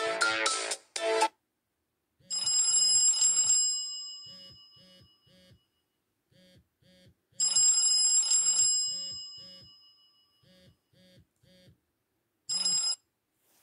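Android ringtone played on a Nokia phone: a bright chime that fades over about a second, then a run of short beeping blips, the phrase looping about every five seconds. In the first second the previous, busier ringtone tune cuts off.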